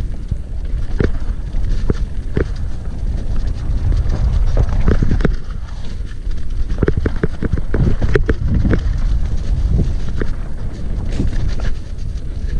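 Wind rumbling on the action camera's microphone as a hardtail mountain bike runs down a dirt trail, with the bike knocking and rattling over bumps in irregular bursts, busiest about a third of the way in and again past the middle.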